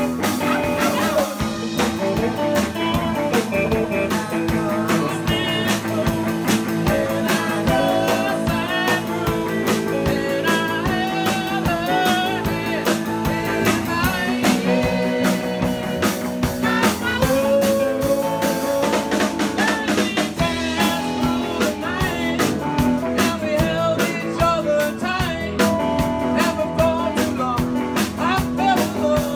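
A live band playing a blues-rock song: a singer over guitar and drum kit.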